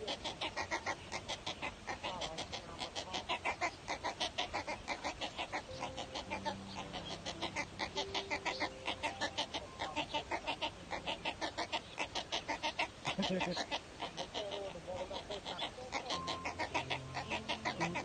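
Waterbird nestlings in a stick nest calling in a fast, unbroken chatter of short clucking notes, about six a second.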